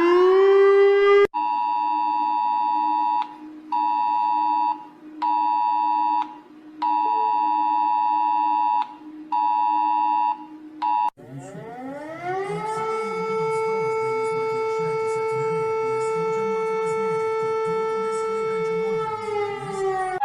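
A civil defense siren finishes its rise and holds its pitch. It cuts off about a second in. Next comes an emergency alert attention tone: two notes sounding together in a cadence of one long beep and two short ones, repeated. About 11 s in, a second civil defense siren winds up, holds a steady tone and begins to wind down near the end.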